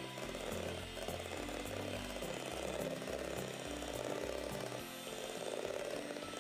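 Electric hand mixer running steadily, its beaters whipping meringue in a stainless steel bowl. Background music with a stepping bass line drops out near the end.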